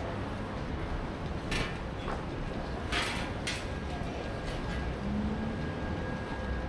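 City street ambience: a steady low rumble of traffic with a few short clattering hisses near the middle.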